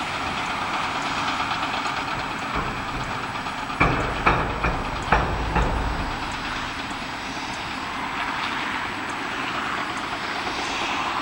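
Heavy construction machinery running steadily, with a quick series of loud metal clanks and knocks about four seconds in.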